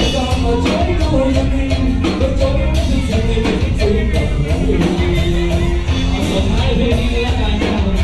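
A live rock band plays loud, steady music on electric guitars, bass guitar and drums, with a regular drum beat throughout.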